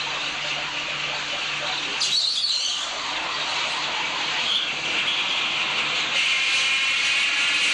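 Steady, hiss-like mechanical noise that shifts in character about two seconds in.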